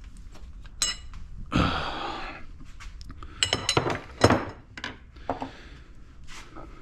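Metal engine parts and hand tools clinking and knocking together as they are handled, with a few sharp ringing clinks about a second in and a cluster of them past the middle, and a short scrape between.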